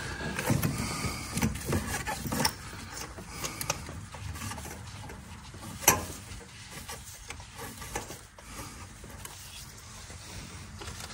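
Scattered light clicks and knocks of hands and tools working among parts in a car's engine bay, with one sharper click about six seconds in.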